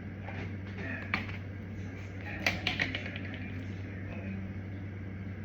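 A few light clicks and taps, one about a second in and a quick cluster about two and a half seconds in, over a steady low hum.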